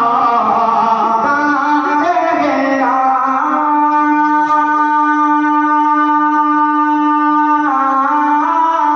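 A man singing a naat into a microphone, moving from note to note and then holding one long steady note from about three seconds in until near the end, when the melody moves on again.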